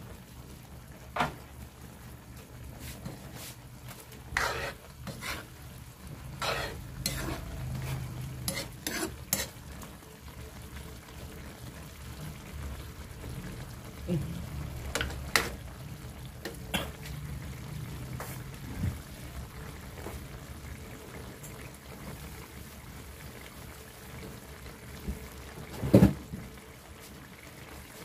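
Chicken innards simmering in sauce in a wide metal pan, with a steady low bubbling and a metal spoon stirring: scattered clinks and scrapes against the pan, and one loud knock near the end.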